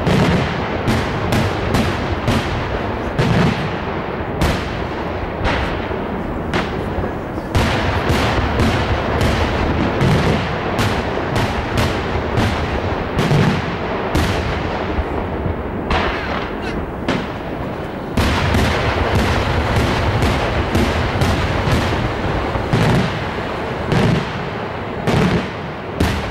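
Daytime aerial fireworks: a rapid, continuous barrage of sharp bangs from shells bursting overhead, several a second, with a few brief lulls.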